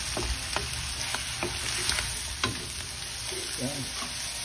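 Shrimp and squid sizzling in a nonstick wok while a wooden spatula stirs them, knocking and scraping against the pan about every half second in the first half. The liquid in the pan is being cooked off until it is dry.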